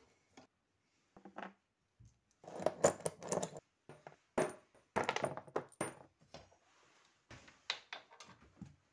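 Loose steel bolts, nuts and washers clinking and clattering against one another in quick runs of metallic clicks, loudest between about two and six seconds in.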